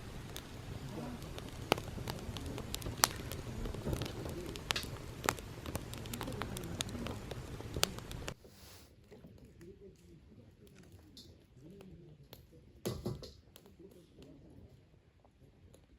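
Campfire crackling and popping, with irregular sharp snaps over a steady hiss. It cuts off suddenly about eight seconds in, leaving a much quieter background with faint distant voices and a few clicks.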